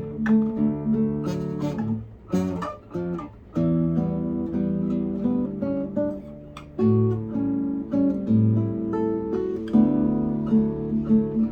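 Solo acoustic guitar being fingerpicked: plucked melody notes over a steadily repeating bass. The playing goes softer and more broken for about a second and a half, two seconds in.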